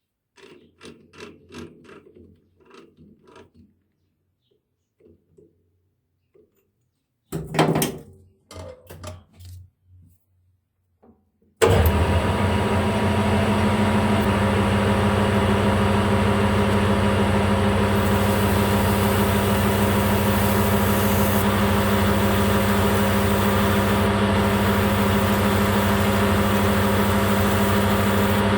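Battery drill starting suddenly and running steadily at speed, spinning a polishing or honing tool inside the bore of a Ducati clutch slave cylinder to smooth its scoring. Before it, a few knocks and short clattering handling sounds.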